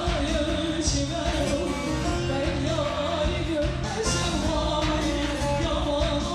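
Live Turkish folk music: a woman singing into a microphone over a bağlama (saz) and drums.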